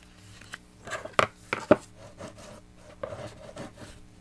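Cardstock being pressed together and smoothed with a bone folder: paper rubbing and scraping, with two sharp taps a little over a second in.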